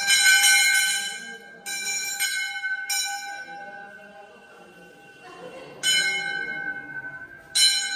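A Hindu temple bell struck by hand again and again at an uneven pace, about five strikes. Each strike rings on with the same pitches and fades, with a lull of a few seconds in the middle.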